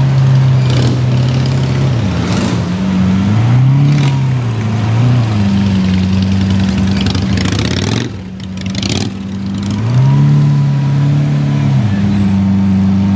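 Lamborghini Aventador's V12 engine running at low speed and revved three times, each rise in pitch held for a second or two before dropping back to a steady low rumble. The sound briefly drops away about eight seconds in.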